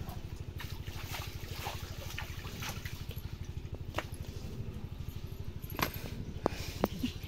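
A small engine running steadily, a low, rapid pulse of about ten beats a second, with a few sharp clicks and knocks over it.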